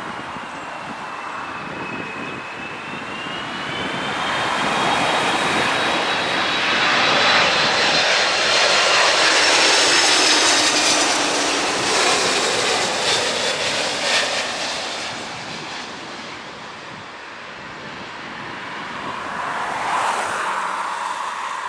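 Airbus A330-300 jet airliner passing low overhead on final approach, its twin turbofan engines at approach power: a roar with a high whining fan tone that builds to a loud peak about halfway through, then fades as the aircraft moves away, swelling again briefly near the end.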